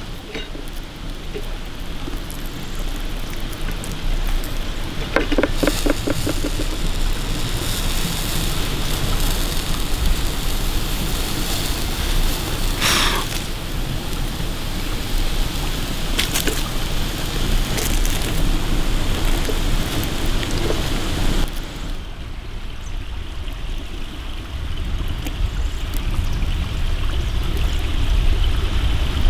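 Campfire burning with a steady crackle, while hands break open a baked salt crust and tear apart a roast chicken, with a few sharp cracks and snaps. The high crackle drops away about two-thirds of the way through.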